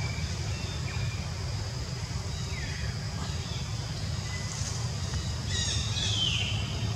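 Birds calling in forest: a short falling call a little before halfway, then a louder run of falling calls near the end, over a steady low rumble.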